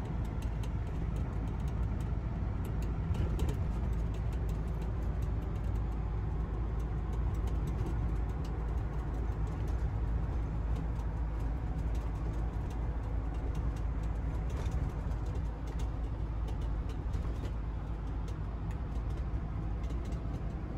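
Steady road and engine noise inside the cab of a moving motorhome: a low, even rumble with faint scattered ticks and rattles.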